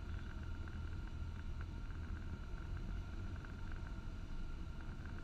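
Cessna 172's engine and propeller running at reduced approach power, a steady low drone.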